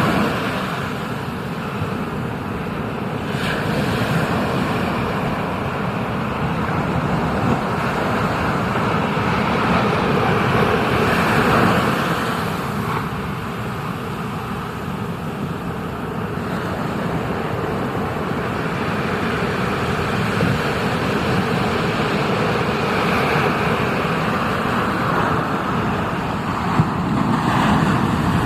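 Steady rushing of ocean surf and wind on an action camera's microphone, swelling and easing slowly.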